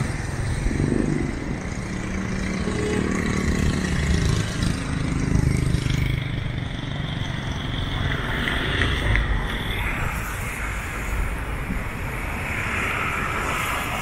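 Road traffic passing over a bridge, engine rumble from passing vehicles strongest in the first half, under a steady outdoor wash of noise.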